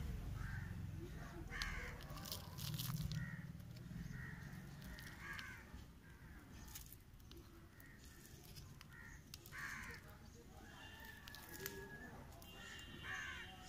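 Crows cawing several times at irregular intervals, over faint rustling and crunching of soil being pressed into plastic cups by hand.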